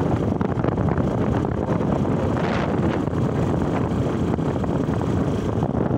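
Motorcycle riding along a road, its engine and tyre noise steady under heavy wind buffeting on the microphone.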